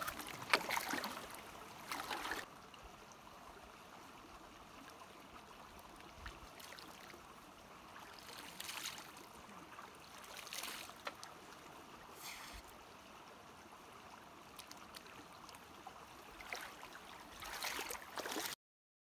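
Hands scooping and pouring clear stream water over a face, in several separate bursts of splashing, over a faint steady trickle of a shallow stream. Near the end, feet splash through the shallow water, and then the sound cuts off suddenly.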